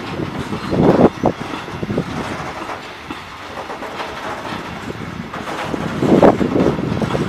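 Log-laden bogie freight wagons rolling past, their wheels clattering rhythmically over the rail joints, with louder bursts of clatter about a second in and again near the end.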